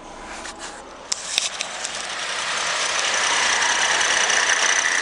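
2007 VE Holden Commodore's 3.6 V6 engine running. A few sharp clicks come about a second in, then the engine grows louder over a couple of seconds and holds a steady run with a high whine over it.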